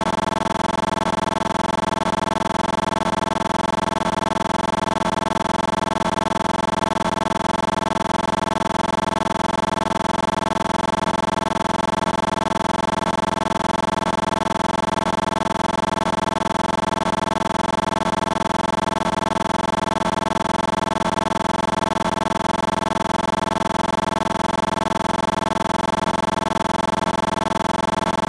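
A steady, unchanging drone of several held tones, with a faint fast flutter running through it.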